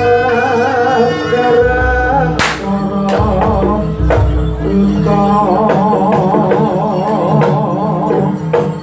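Javanese jaranan accompaniment music: a wavering sung melody over steady drumming and percussion, with a loud sharp crack about two and a half seconds in.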